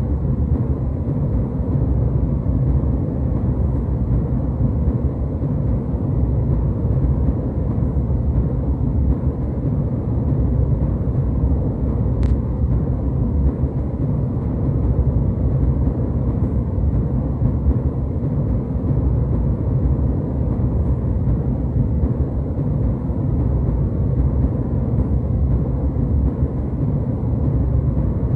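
Steady low rumble of jetliner cabin noise, deep and even throughout, with one faint click about twelve seconds in.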